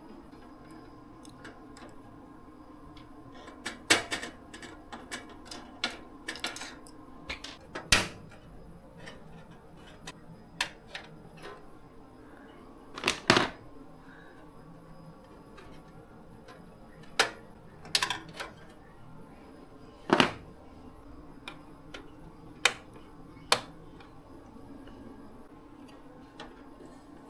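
Scattered sharp clicks and knocks of computer parts, connectors and tools being handled and fitted during PC assembly, over a low steady hum.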